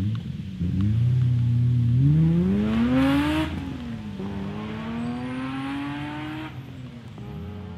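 A rally car's engine accelerating hard. Its pitch climbs through one gear, drops at a shift about three and a half seconds in, and climbs again through the next gear. It drops once more near the end and fades away.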